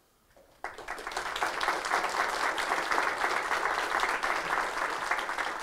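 Audience applauding. It breaks out about half a second in after a brief silence, keeps up steadily and eases slightly near the end.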